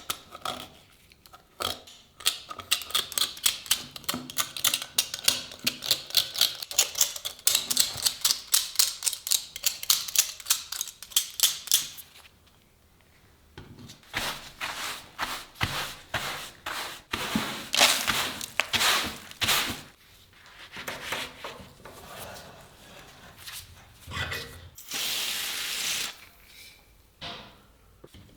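Rapid back-and-forth hand scrubbing strokes on a rusty steel knife blade, about three strokes a second, then slower, uneven strokes after a short pause, with a steady hiss lasting about a second near the end.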